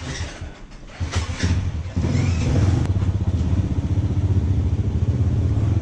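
A motorcycle engine starts about a second in, with some clatter, and runs steadily, louder from about two seconds in.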